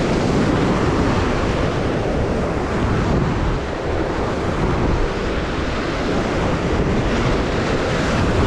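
Sea surf breaking and washing against the rocks just below, with wind buffeting the microphone.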